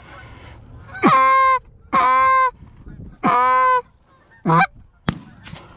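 Goose call blown in three long honks, each breaking up from a low note into a held clear tone, then a shorter fourth honk; a sharp click sounds near the end.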